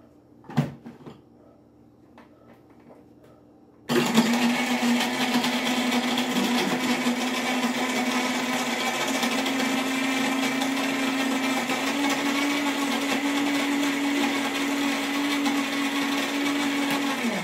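Countertop blender crushing ice with rum, syrup and lime juice for a frozen daiquiri. It starts about four seconds in and runs steadily, its motor tone stepping slightly higher a couple of times, then shuts off near the end. Before it starts there are a couple of knocks as the jar is set on its base.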